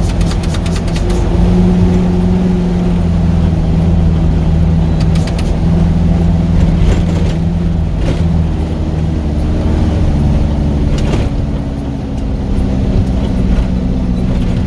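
Truck engine running under way on a rough dirt road, its note shifting a few times, with occasional knocks and rattles from the bumps.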